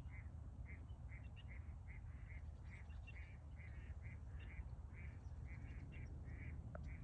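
An animal calling in a steady series of short notes, about three a second, over a low rumble of wind on the microphone.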